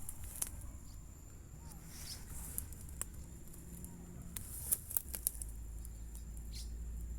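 Low steady rumble of water running at a dam swollen by heavy rain, growing a little stronger about five seconds in. Scattered sharp clicks, a steady thin high tone, and a short falling chirp near the end sound over it.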